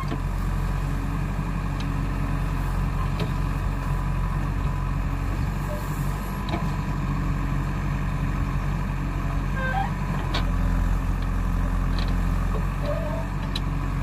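JCB 3DX backhoe loader's four-cylinder diesel engine running steadily under load while the backhoe arm digs, getting a little louder about ten seconds in.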